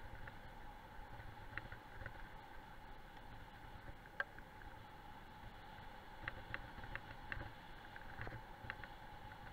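Rolling noise of a dog-drawn training rig on a gravel road: a steady low rumble and hum, with scattered small clicks and ticks, more of them in the second half.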